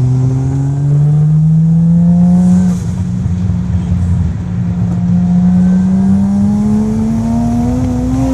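Toyota Supra MK2's 1JZ turbo inline-six accelerating through its new exhaust: the engine note climbs steadily, drops at a gear change about three seconds in, then climbs again more slowly in the next gear.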